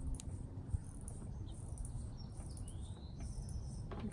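Quiet outdoor background: a low rumble with faint high chirps, a short rising one about halfway through. A couple of light clicks come from pliers working a thin wire.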